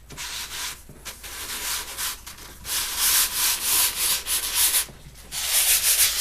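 A hand-held sanding pad rubbed lightly back and forth over a canvas primed with dried gesso, giving a scratchy hiss with each stroke. The sound grows louder about halfway through. This is the light sanding between gesso coats that knocks off the little nubs and specks.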